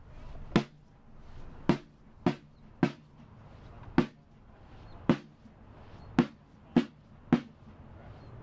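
A drum sounding a march beat: sharp single strikes at about two a second, with some beats left out, each ringing briefly.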